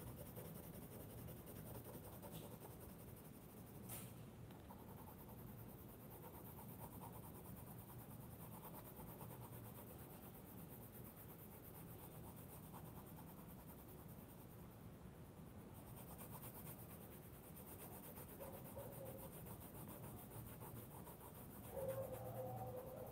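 Coloured pencil shading on sketchbook paper: faint, steady scratching of small repeated strokes, with one light click about four seconds in.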